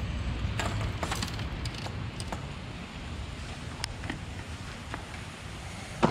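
Steady hiss of rain, with light clicks and taps as baitcasting rods and reels are handled and laid down on a concrete floor, and one sharp knock near the end.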